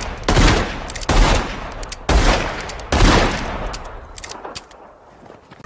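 Loud gunfire: four heavy shots about a second apart among quicker sharp cracks, dying away toward the end.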